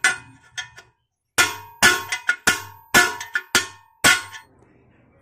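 Hammer blows on a steel punch held against a Honda XR200 motorcycle swing arm, knocking out a stuck part at the pivot. It is a series of sharp metallic clangs, each with a short ring, about ten strikes with a brief pause about a second in.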